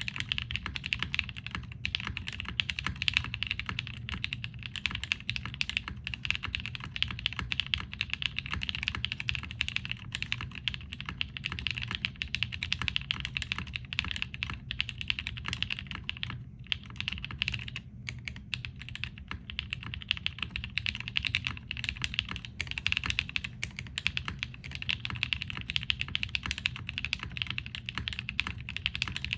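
Continuous fast typing on a TGR Jane V2 CE mechanical keyboard with broken-in Kailh Cream linear switches, an aluminum plate and GMK ABS keycaps: a dense, irregular run of keystrokes with a brief break about sixteen seconds in.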